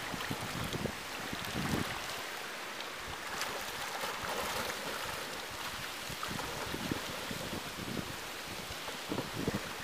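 Water splashing and sloshing from a swimmer's strokes in a pool, with gusts of wind on the microphone.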